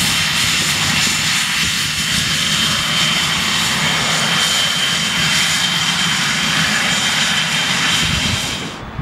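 Twin Pratt & Whitney PW545 turbofans of a Cessna Citation 560XLS business jet taxiing close by: a steady high whine over a broad rush. The sound cuts off suddenly near the end.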